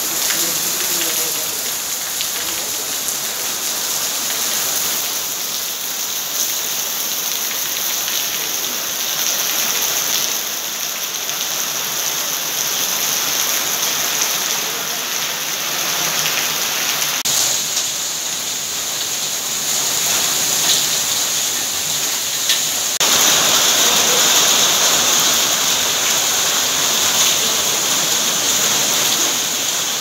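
Heavy rain falling steadily, splashing on paving and roofs as a dense, even hiss. The sound shifts abruptly twice and is louder from about 23 seconds in.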